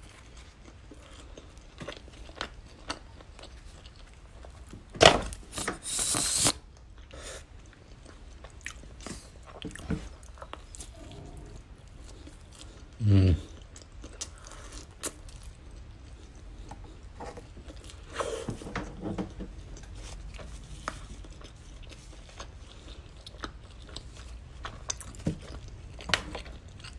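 Close-miked chewing and mouth sounds of a person eating a ham and cheese bun, with many small wet clicks. A sharp loud noise about five seconds in is followed by a brief hiss, and there is a short louder sound about thirteen seconds in.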